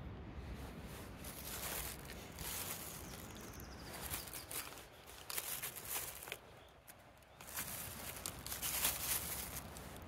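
A bristle brush scrubbing oil paint onto a canvas board in short, scratchy strokes, coming in three bunches with brief pauses between.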